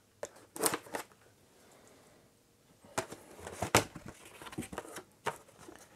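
A cardboard box being opened by hand. A couple of short scrapes come as a blade slits the tape under a second in; after a pause, sharp cardboard snaps and rustling follow as the flaps are pulled open.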